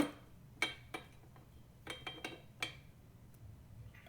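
Metal parts of an electric meat grinder clinking and knocking together as they are fitted into the grinder head: several sharp clinks spread over the first three seconds.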